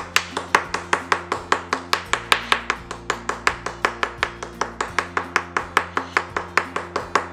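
Metal spoon rapidly tapping a foil cheese-powder packet against a kitchen countertop, an even run of sharp clicks about five or six a second, to break up the clumped cheese inside.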